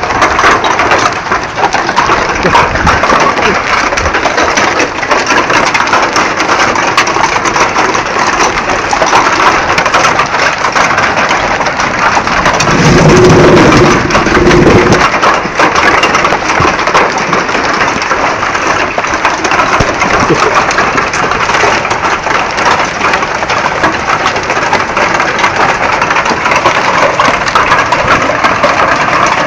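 Hail falling hard: a dense, steady rattle of many small stone-like hits. About twelve seconds in, a louder low rumble with a held tone rises over it for two or three seconds, then fades.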